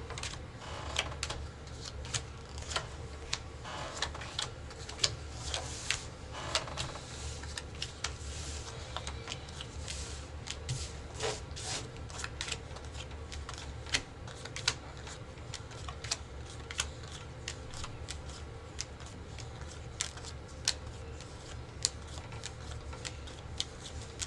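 Rook playing cards being handled on a table: irregular light clicks and snaps of cards, with a few short denser patches of card noise.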